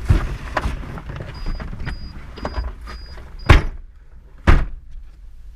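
A vehicle's door-open warning chime beeping about twice a second, cut off by the door slamming shut, then a second heavy thump about a second later, with small knocks and rattles in the cabin.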